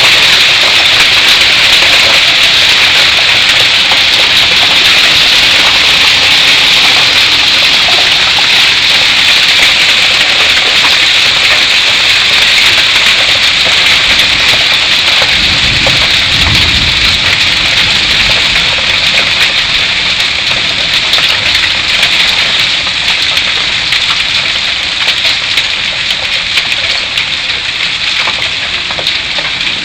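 Heavy hail pelting down in a dense, loud clatter of countless small impacts mixed with rain, easing slightly toward the end. A brief low rumble comes about halfway through.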